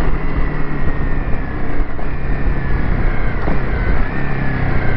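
Motorcycle engine running while riding, with heavy wind noise on the camera microphone and a faint high whine that drifts slightly in pitch.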